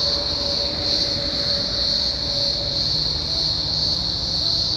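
A chorus of cicadas in the trees: a steady, high-pitched drone with a slight pulsing, over a low rumble.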